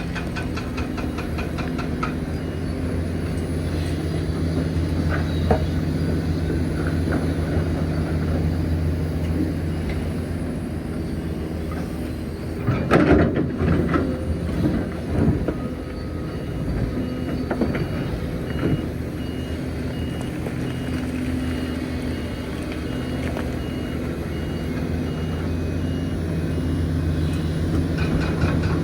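Hitachi Zaxis 490LCH excavator's diesel engine running steadily. About halfway through comes a burst of loud clattering thuds, as a bucketload is dropped into a truck.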